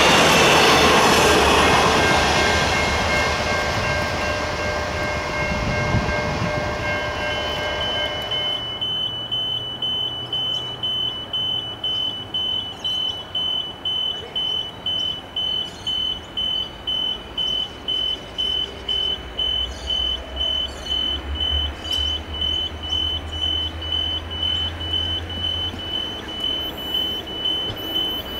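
Heritage passenger train carriages rumbling past and drawing away, fading over the first eight seconds. After a cut, an electronic level crossing bell dings steadily at about two strikes a second, with a low rumble for a few seconds near the end as a diesel-hauled train approaches.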